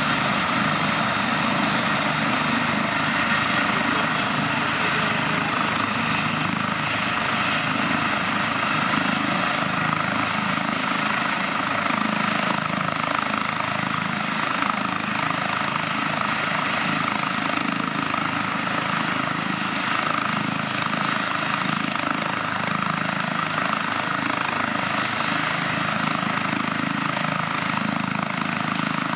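Airbus H135 helicopter running steadily on the ground during start-up, its twin turboshaft engines and turning main rotor giving an even, unchanging noise.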